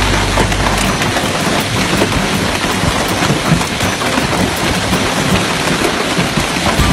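Heavy hail pelting the ground, a dense clatter of countless small sharp impacts over a steady rush. A low rumble underneath stops about a second in.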